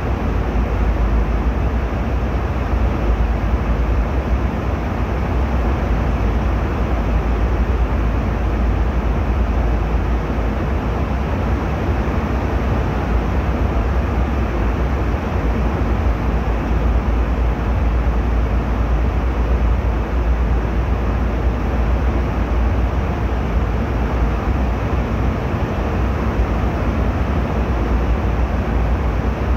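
Airliner cabin noise in flight: a steady deep rumble with a rushing hiss of engines and airflow over the fuselage, unchanging throughout.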